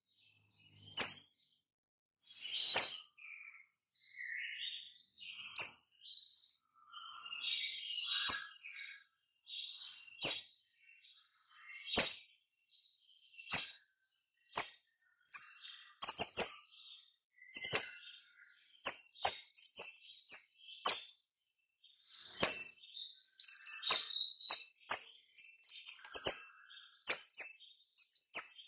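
Orange-headed thrush (kemade) giving its 'nembak' shot calls: short, sharp, very high notes. They come a second or two apart at first, with soft twittering between them, then faster and closer together in the second half, several a second near the end.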